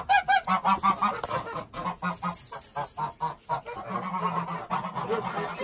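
Domestic geese honking over and over, many short calls in quick succession.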